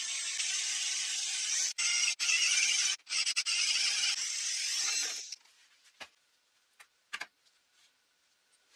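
Power drill boring a hole into a wallpapered wall, the bit cutting with a steady hiss that breaks off for an instant a few times and stops about five seconds in. A few light clicks follow.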